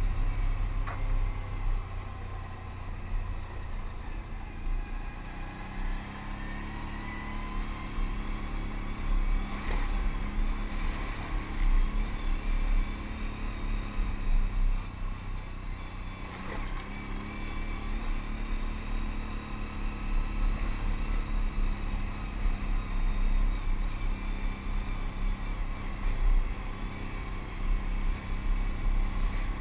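Can-Am Outlander ATV engine running under way on a gravel road, its pitch rising and falling as the throttle changes, over a constant low rumble.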